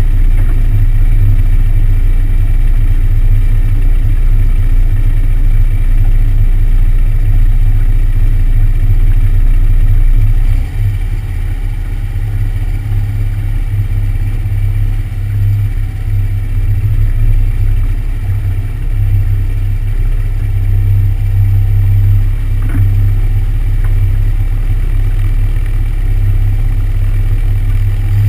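A light airplane's engine running steadily at low power while taxiing, heard from a wing-mounted camera as a loud low hum. Its level drops a little about ten seconds in.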